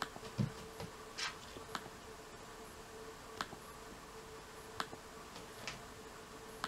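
Quiet room with a faint steady hum and a handful of short, sharp clicks at uneven intervals.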